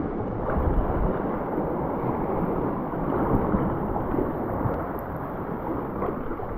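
Sea water sloshing and lapping around a sea kayak's hull as it is paddled, with a low rumble of wind on the microphone; a light swell is running against the cliffs.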